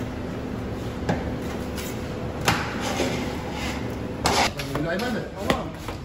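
Food-preparation clatter: scattered sharp knocks over a steady hum, with voices in the background in the second half.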